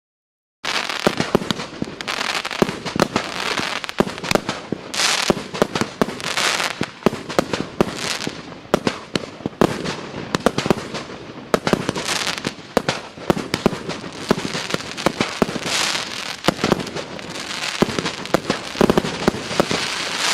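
A 100-shot, 1.2-inch-calibre fireworks cake firing, starting abruptly about half a second in: a dense, continuous run of launch thumps and sharp bursting bangs mixed with crackling.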